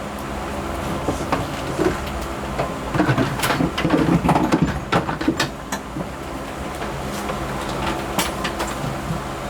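Knocks and rattles of car interior parts being handled and pulled loose, loudest around the middle, over a steady low hum.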